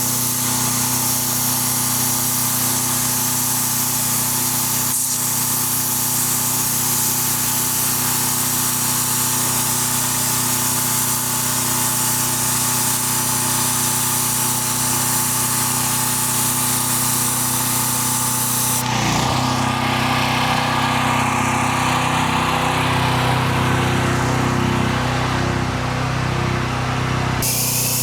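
Gas-engine pressure washer running steadily while the wand sprays a high-pressure jet of water onto concrete. The sound changes abruptly about two-thirds of the way through.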